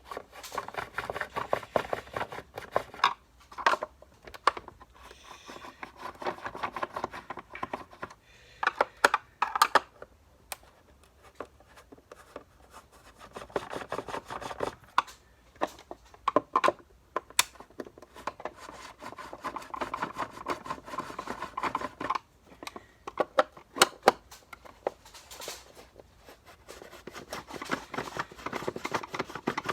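Hands working on vacuum cleaner parts: irregular scraping and rubbing, broken by many sharp clicks and knocks.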